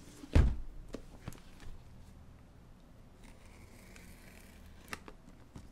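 X-Acto knife slitting the tape on a tape-wrapped cardboard box, with light scraping and a few small clicks. A loud thump about half a second in as the box is handled.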